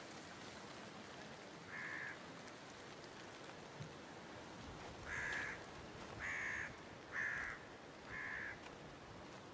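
A crow cawing five times: a single caw about two seconds in, then four more about a second apart in the second half.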